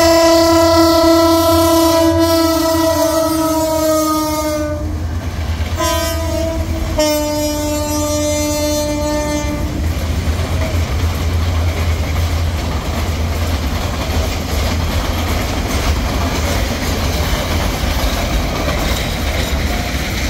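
Bangladesh Railway diesel locomotive passing with its air horn sounding: a long blast, a short one, then another long one, the pitch sagging slightly and stepping lower for the last. From about ten seconds in, the horn stops and the Intercity passenger coaches roll past on the rails with a steady rumble.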